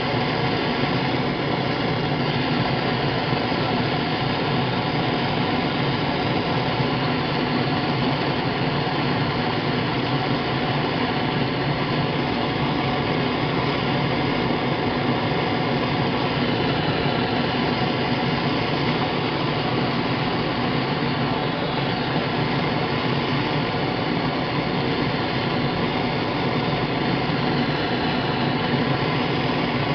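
Propane torch burning steadily, a constant rushing hiss of the flame with no break, heating an aluminium brake lever toward the temperature where it softens enough to bend.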